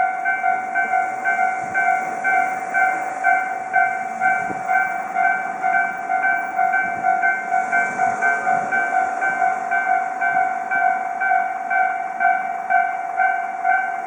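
Japanese level-crossing warning bell ringing over and over, about two and a half strikes a second, in the odd tone this crossing is known for. Faint noise of a passing train swells under it in the middle.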